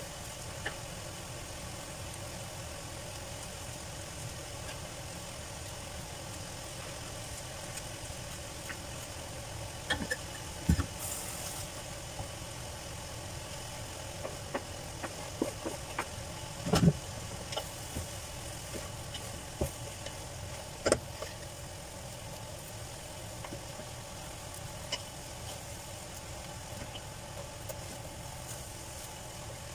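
A wooden spoon stirs sautéing cabbage and carrot strips in a metal pot. The spoon knocks and scrapes against the pot in a scattered run of sharp knocks through the middle of the stretch, loudest about halfway. Underneath runs a steady low hum and faint sizzle.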